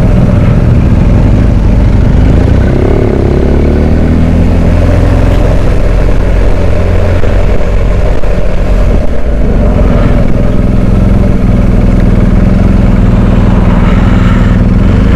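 BMW R1250GS Adventure's boxer-twin engine running while being ridden, its note shifting slightly with the throttle, over wind and road noise.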